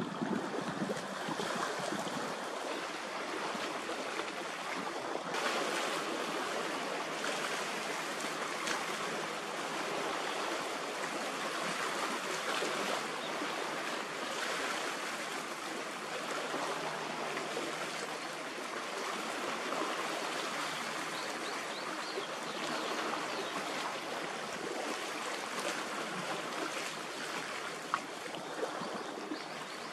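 Steady rushing hiss of harbour water, small waves washing along the shore, a little fuller from a few seconds in, with a faint low hum through the middle.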